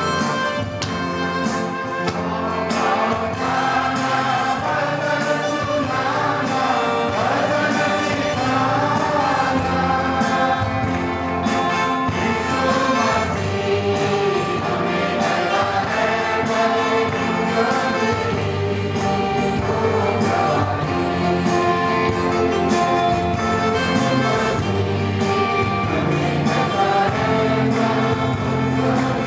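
A congregation singing a hymn together, led by a voice on a microphone and accompanied by electric guitar and keyboard with a steady beat.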